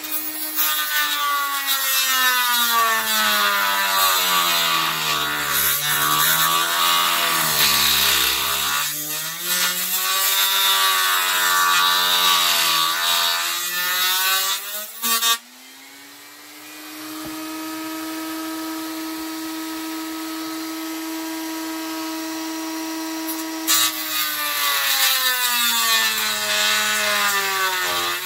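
Handheld rotary tool with a cut-off wheel cutting through the plastic hinge tab of a turntable dust cover: a whining motor under loud grinding, its pitch sagging and recovering as the wheel bites. About halfway the cutting stops and the tool spins free with a steady, quieter whine for several seconds, then bites into the plastic again near the end.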